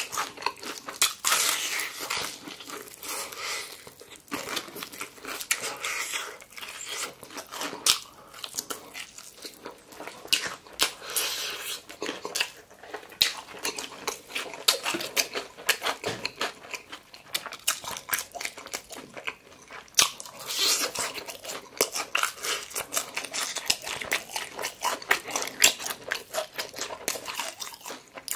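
Close-miked crunching and chewing of crispy fried chicken, the batter giving many sharp, crisp crunches in quick, irregular succession.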